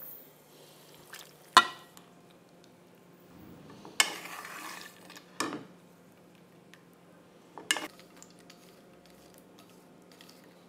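Kitchenware clattering: a sharp clink of dishes about a second and a half in, a scraping rustle of a wooden spatula in a frying pan around four seconds, and two more knocks of the spatula against the pan.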